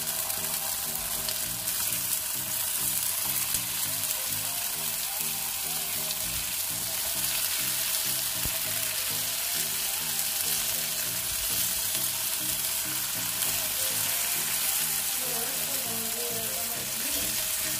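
Food frying in hot oil in a pan, a steady, dense sizzle.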